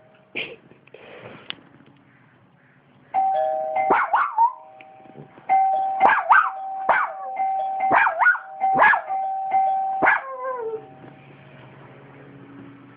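An electronic doorbell plays a steady chime tune in two stretches while a dog barks sharply over it, about ten barks in all. The barking stops a little after ten seconds in.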